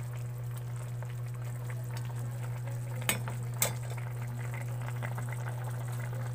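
A pot of bottle-gourd and misua soup bubbling at a rolling boil over a steady low hum. A little after three seconds in come two sharp clinks, a metal ladle knocking against the pot.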